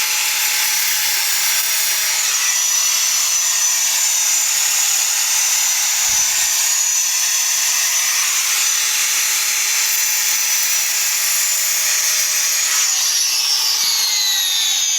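Angle grinder running steadily with a high whine, grinding down the rough cut edges of ceramic backsplash tiles to even them. Near the end its pitch falls.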